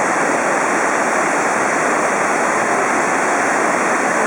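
Kegon Falls waterfall: a loud, steady rush of falling water, unchanging throughout.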